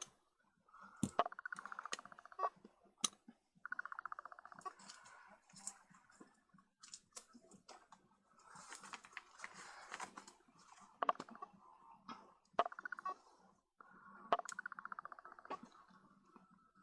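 Small metal parts of a Vivitar Series 1 70-210 zoom lens being handled and screwed together: a fine, rapid rasp of threads or rings turning, in several runs of a second or two, with sharp clicks and taps between.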